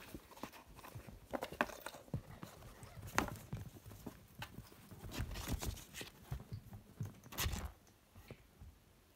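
A kitten scrabbling in a cardboard box and batting at a string toy: irregular scratching, tapping and rustling on the cardboard, with a couple of louder knocks.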